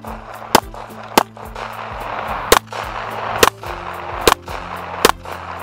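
Semi-automatic pistol fired shot after shot, about six sharp reports spaced a little under a second apart, with a longer pause after the second. Background music with sustained notes plays throughout.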